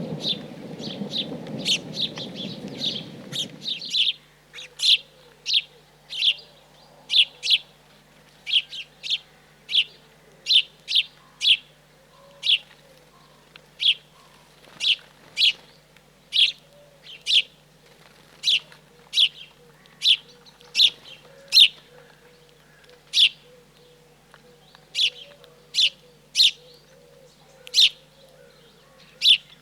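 A small wild bird calling with repeated short, sharp, high chirps, a little over one a second. A low rumble of thunder and rain lies under the first few seconds and stops abruptly.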